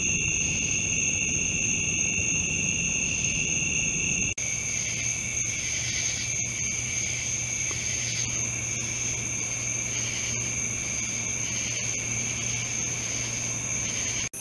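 A night chorus of insects such as crickets, their steady high trills overlapping. About four seconds in the sound cuts out for a moment. After that, a slower pulsing call joins the steady trills, over a faint low hum.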